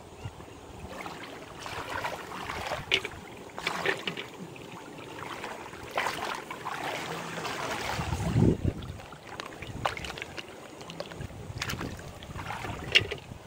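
Hands splashing and sloshing in shallow stream water, in irregular swishes and splashes, with one heavier slosh about eight seconds in.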